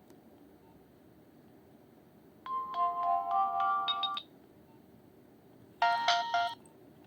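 Nokia 2660 mobile phone playing ringtones: a short electronic melody of a few stepping notes lasting under two seconds, starting about two and a half seconds in, then a second, shorter snatch of a different tone near the end, each cut off abruptly as if a preview.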